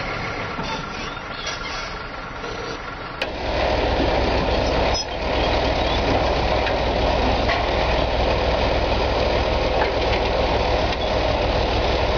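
A truck engine running steadily, then after a sudden cut about three seconds in, a tracked tractor's engine running louder and steadily with a strong low hum.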